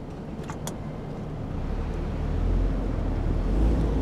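A car's low engine and road rumble, swelling from about a second and a half in and staying loud; two faint light clicks about half a second in.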